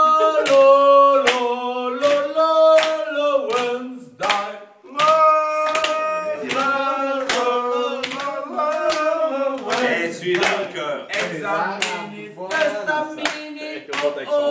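A small group of men singing a cappella and clapping their hands in time, about two claps a second.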